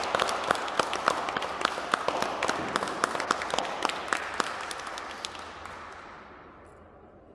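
Audience applauding, many hands clapping at once; the clapping thins out and fades away over the last couple of seconds.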